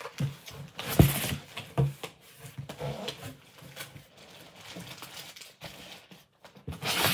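Cardboard shipping box being pulled and torn open by hand: scattered knocks and thumps of the cardboard, the loudest about a second in, with a louder burst of rustling near the end.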